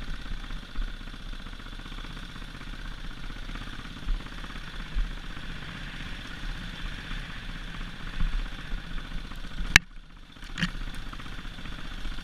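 Husqvarna TE450 single-cylinder four-stroke dirt bike engine running at steady trail speed, with low knocks and clatter from the bike over the rough ground. A sharp knock about ten seconds in, then the sound drops for a moment before the engine picks up again.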